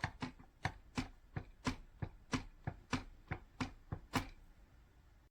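Keys of a Perixx Periboard-512B ergonomic keyboard being typed: about fifteen sharp clacks at an uneven pace, roughly three a second, stopping about four seconds in.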